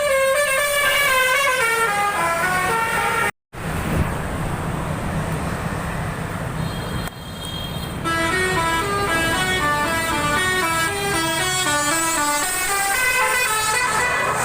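Bus "telolet" musical air horns playing a rapid stepped melody of several tones over a bus engine rumble. The horn melody stops about three seconds in, leaving the engine, and starts up again about eight seconds in.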